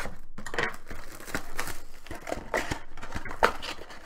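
Shrink wrap and cardboard of a trading-card hobby box being torn open and handled: irregular crinkling and tearing with small clicks, and a sharp snap about three and a half seconds in.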